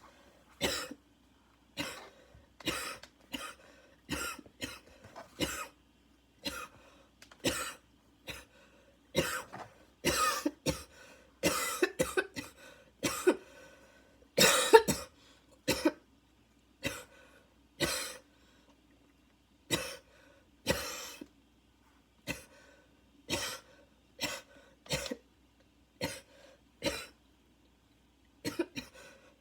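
A long fit of barking coughs: about one short, sharp cough a second, packed closer together in the middle. The airways are tight, needing an inhaler.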